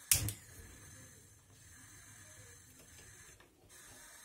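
Gas hob burner knob pressed and turned, giving a sharp double click near the start, then a faint steady noise.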